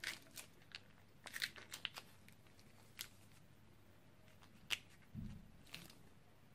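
Plastic piping bag crinkling and crackling in the hand as slime is squeezed out of it, in faint scattered short crackles: a quick cluster about a second and a half in, the sharpest one about three-quarters of the way through. A soft low thump follows shortly after.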